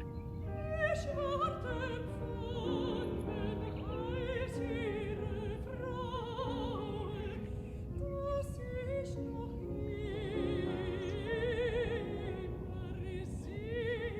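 Background classical music: a singing voice with strong vibrato, held on long notes over instrumental accompaniment.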